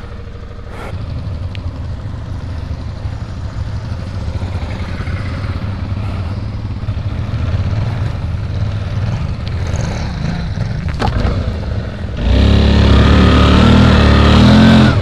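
Suzuki V-Strom's V-twin engine running at low revs as the motorcycle rides through grass, with a couple of knocks about eleven seconds in. About twelve seconds in, the throttle is opened hard and the engine runs loud for about three seconds, then cuts back sharply near the end.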